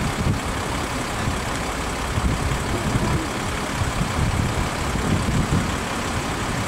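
Street traffic noise: road vehicle engines running, with an uneven low rumble.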